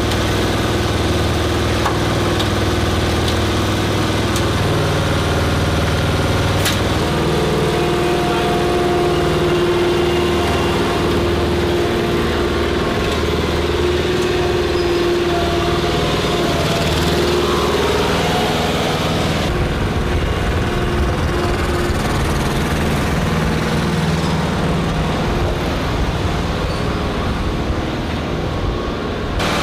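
An engine running steadily, its tone shifting abruptly about four seconds in and again about twenty seconds in.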